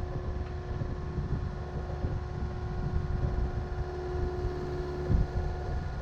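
Volvo excavator's diesel engine running under hydraulic load as it lifts a diesel tank, with a steady whine that cuts off about five seconds in at a brief low thump.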